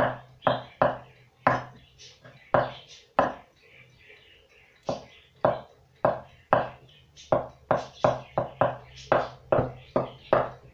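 Chef's knife chopping hard-boiled eggs on a wooden cutting board: a run of sharp knocks as the blade strikes the board, about two a second, pausing for about a second and a half near the middle and quickening near the end.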